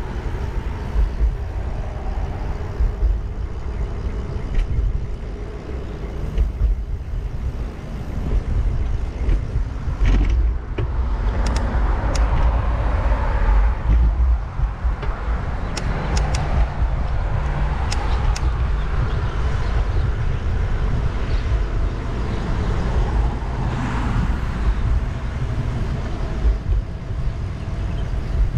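Road traffic passing a bicycle, cars swelling past several times through the middle, over a constant low rumble of wind on the microphone.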